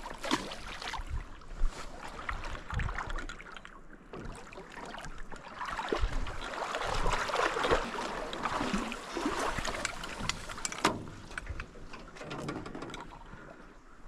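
Rustling, scraping and footsteps of a person moving along a riverbank, with scattered clicks and a louder stretch of scraping past the middle.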